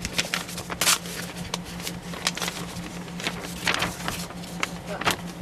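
Sheets of old paper rustling and crackling as they are handled and unfolded, in a string of short, irregular crackles over a steady low hum.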